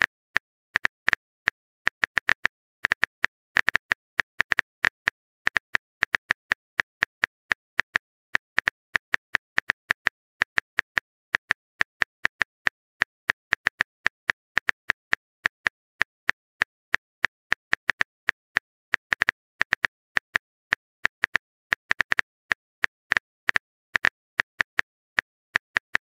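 Keyboard-typing sound effect from a texting-story app: a quick, irregular string of short clicks with brief gaps.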